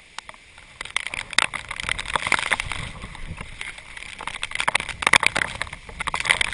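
Storm wind and rain noise on the microphone near a tornado: a dense, irregular crackle over a low rumble, starting about a second in.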